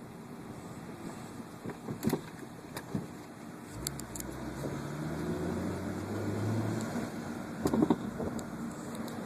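A car running with scattered rattles and knocks, the rattling noise being checked. A low engine tone rises gently from about four seconds in and drops away near seven seconds, with a cluster of rattles just after.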